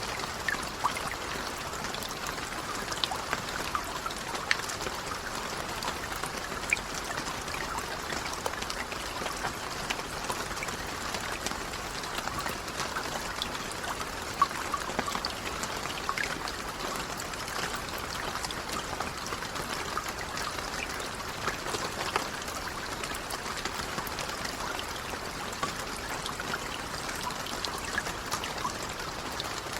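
Light, steady rain with many small drops pattering and dripping, a few individual drops standing out as louder ticks here and there.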